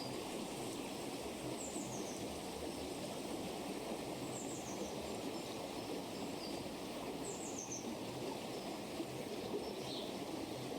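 Babbling stream: a steady rush of running water, with a few faint, high bird chirps over it, about three times.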